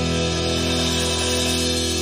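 Instrumental passage of a rock song: a single guitar chord held and ringing steadily.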